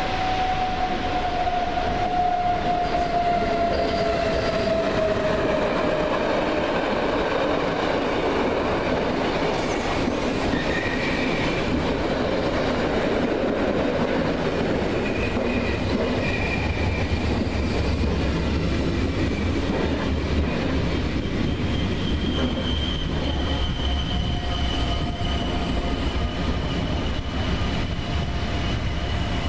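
A train running through a station: a continuous loud rumble of wheels on rails. A whine falls slowly in pitch over the first few seconds, and thin high steady tones ring out later, over a deeper rumble that grows about halfway through.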